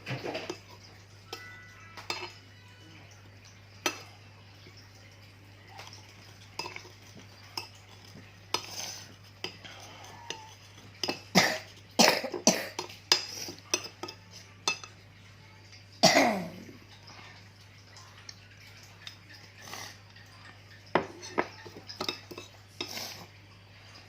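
A spoon stirring a honey-and-salt cough remedy in a cup, clinking and scraping against the sides in irregular taps, thickest around the middle. About two-thirds through comes one loud, short sound that falls in pitch.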